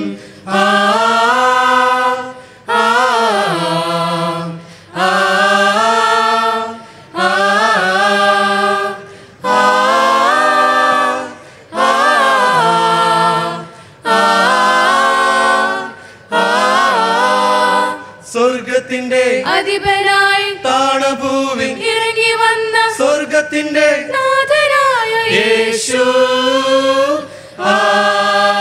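Mixed a cappella group of men and women singing in harmony without recognisable words: about eight long held chords of roughly two seconds each, with short breaks between them, then from about two-thirds through a continuous passage with quicker note changes.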